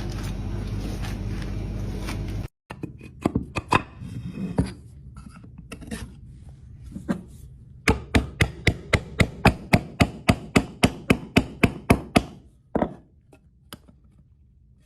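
Steady noise that cuts off abruptly, followed by scattered sharp taps and then a run of evenly spaced sharp knocks, about four a second, lasting some four seconds.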